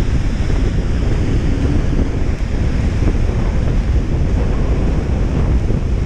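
Wind buffeting the microphone: a loud, steady rumbling rush that swells and dips slightly.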